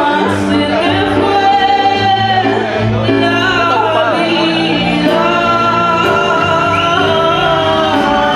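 A woman singing a slow folk song into a microphone, backed live by an electric keyboard, an acoustic guitar and a hand drum.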